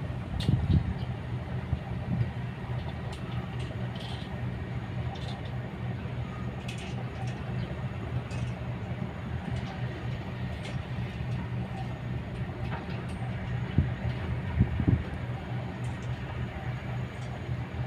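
Kobelco hydraulic excavator's diesel engine running steadily, with a few heavy thumps near the start and again about fourteen seconds in, and scattered light clicks.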